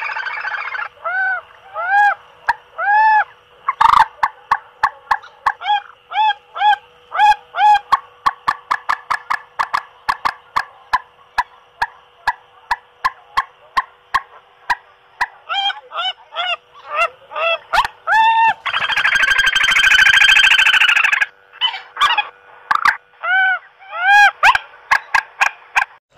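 Recorded bird calls played through a battery-powered lure speaker: short arched call notes repeating over a steady electrical hum, with frequent sharp clicks and a harsh buzzing burst about 19 seconds in. The trapper thinks the player is malfunctioning.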